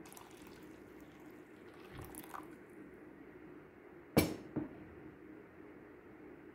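Water poured from a glass jar into a paper coffee filter in a funnel, trickling and splashing for about two and a half seconds. About four seconds in comes a sharp knock, then a quieter one half a second later.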